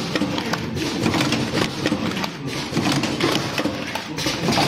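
Vertical automatic cartoning machine running: a rapid, uneven clatter of mechanical clicks over a steady hum.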